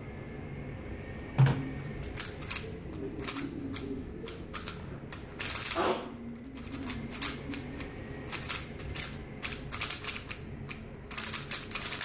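A 3x3 speedcube being solved at speed: fast, irregular plastic clicking and clacking of layer turns. There is a single loud thump about a second and a half in, as the solve begins.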